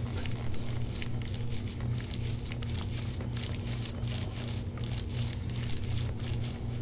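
Hands-on back massage: soft, irregular rubbing, scraping and squishing of skin under hands or a scraping tool, several small crackles a second, over a steady low hum.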